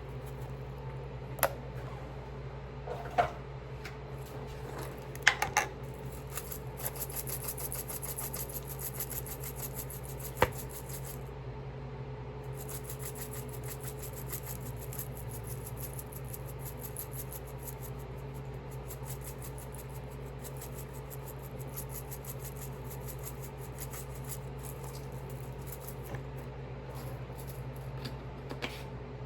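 Steady low hum of a kitchen appliance or fan, with a few sharp clicks and knocks of containers and utensils handled while seasoning shrimp, and a faint fine rattle or hiss through most of it.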